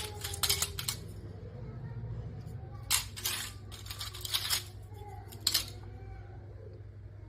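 Loose mobile phone motherboards clinking and clattering against each other as they are handled, in several short clusters of sharp clicks over a low steady hum.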